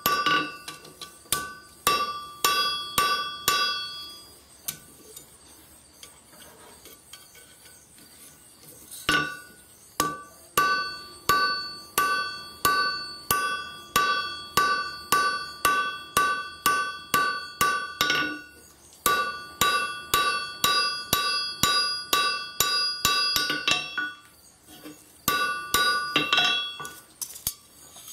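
Hand hammer striking red-hot steel, a file being forged into a flint striker, on an anvil. About two blows a second in runs, with a pause of several seconds early on and shorter breaks later. Each blow is followed by a bright ringing from the anvil.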